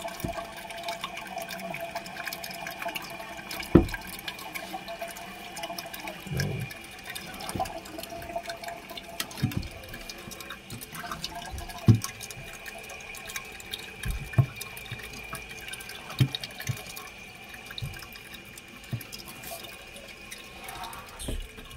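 Toilet tank fill valve running: a steady hiss of water refilling the tank, with scattered sharp knocks from parts being handled against the porcelain tank, the loudest about 4 seconds and 12 seconds in.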